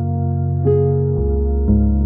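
Calm instrumental music: sustained notes over a low bass, with a new note or chord entering about once a second.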